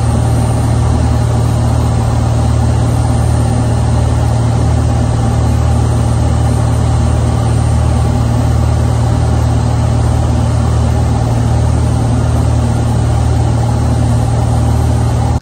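Fishing boat's engines running steadily at speed: a loud, even low drone over the rush of the wake and wind.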